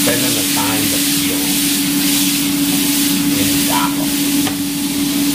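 Green beans and garlic sizzling in a frying pan on an electric stovetop, tossed in the pan about four seconds in, over a steady low hum.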